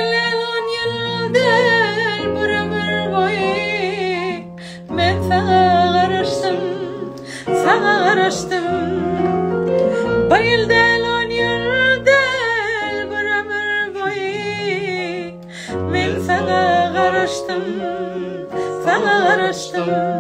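A woman singing a pop melody with a wavering, vibrato-laden voice over a keyboard backing of held chords and bass notes that change every second or so.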